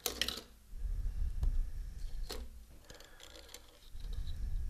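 Small clicks and rustling from hands handling thin wires on a micro quadcopter frame, with low bumps against the table.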